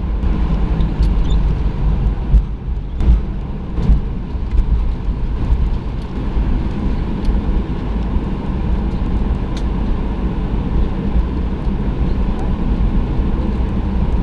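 Cabin noise of a Boeing 737-900 rolling on the ground after landing: a steady low rumble from the wheels and engines, with a few short knocks and rattles.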